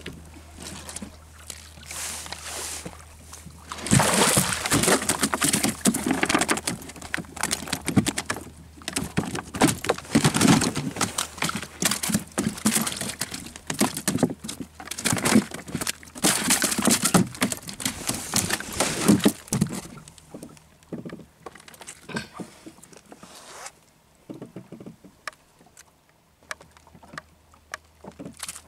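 A hooked kingfish splashing and thrashing at the side of a small boat and as it is hauled aboard on a handline, a long run of irregular loud splashes, knocks and slaps that starts suddenly about four seconds in and dies down after about twenty seconds into scattered light knocks. A low steady hum runs under the first few seconds and again near the end.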